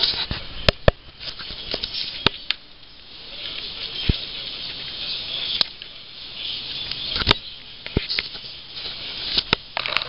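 Dairy cattle hooves knocking on a concrete yard: a dozen or so irregular sharp knocks over a steady rustling hiss.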